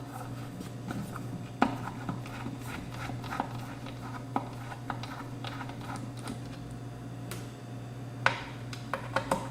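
Scattered light clicks and taps of hand tools and screws being handled on a car amplifier's metal casing, over a steady low hum.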